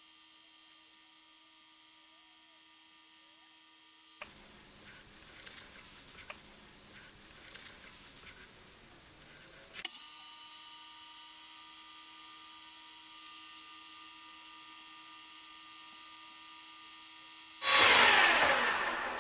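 Metal lathe running with a steady high whine while a brass hammer head spins in its chuck. A quieter stretch in the middle holds faint rubbing and small clicks. Near the end the lathe is switched off and its sound falls in pitch and fades as it spins down.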